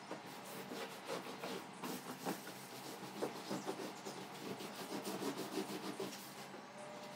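Cloth scrubbing against a mattress's fabric cover in irregular rough strokes, heaviest in the middle and easing off near the end.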